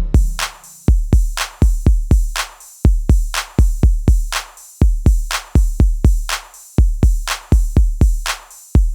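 Background music: an electronic drum-machine beat of deep kick drums and crisp hi-hat hits in a steady rhythm.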